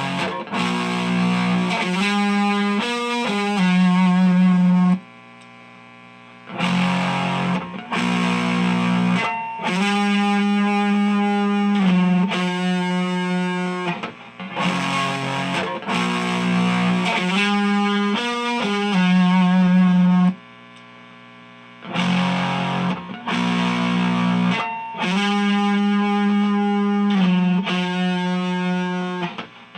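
Distorted electric guitar: a Fender Stratocaster's neck single-coil pickup through an Xotic SL Drive overdrive pedal into an Orange Micro Dark amp, playing a riff of held chords and single notes. The same phrase comes twice, each time followed by a short break about 5 and 20 seconds in.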